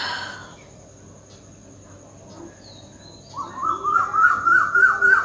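A sneeze trails off at the very start, then a bird chirps in the background. About three seconds in, a quick run of rising chirps repeats several times a second for about two seconds.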